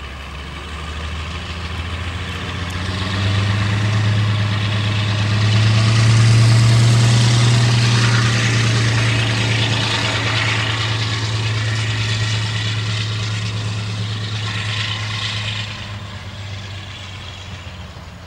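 Class 52 'Western' diesel-hydraulic locomotive D1062 working under power, its twin Maybach diesel engines giving a deep, steady note. The note swells over the first several seconds and then fades, dropping away noticeably near the end, with a hiss of higher noise over it at times.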